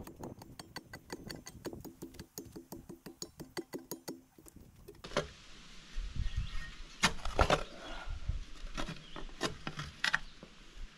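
Hand tamping bar packing soil around a freshly set log gatepost: a series of separate heavy thumps and scrapes into the dirt. Before that, a fast, even ticking of about five a second.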